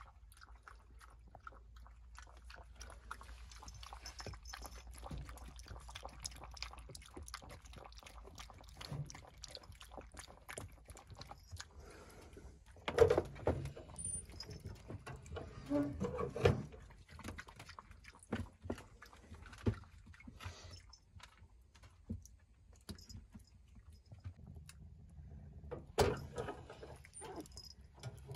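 Puppies chewing and eating from a food bowl, with small clicks and crackles from a wood-burning stove fire. A few louder knocks come about halfway through and again near the end.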